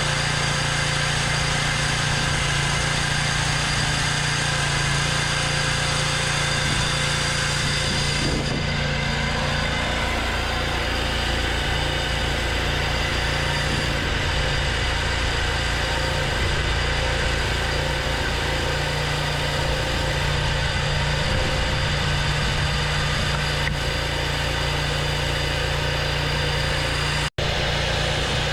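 Engine-driven sawmill running steadily while milling an oak log, a continuous mechanical drone. The sound breaks off for an instant near the end.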